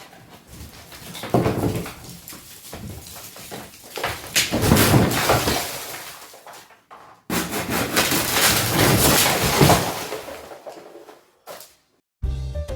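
Demolition noise: repeated crashing and breaking of debris, with a sharp crash about a second in and two longer rough stretches of rubble falling, cut off abruptly in between.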